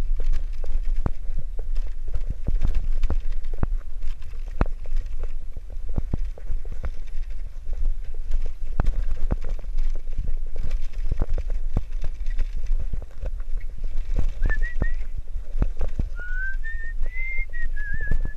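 Bicycle rattling along a rough concrete lane: the wire front basket and frame clatter in irregular knocks over a steady low rumble of riding wind on the microphone. From about two thirds of the way in, a person whistles a short tune.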